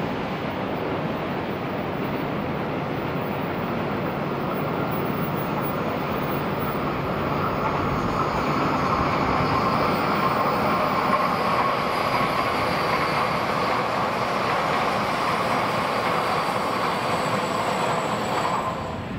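Class 923 Doctor Yellow Shinkansen inspection train passing at speed: a continuous rushing noise of wheels on rail and air that swells about seven seconds in, stays strong, and cuts off suddenly near the end.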